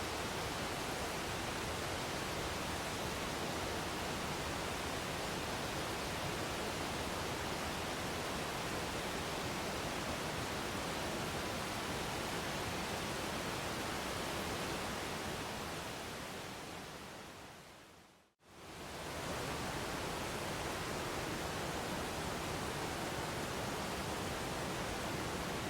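Steady, even rush of a waterfall. It fades out over a few seconds, drops to silence for a moment about 18 seconds in, and fades straight back in, like the seam where the recording loops.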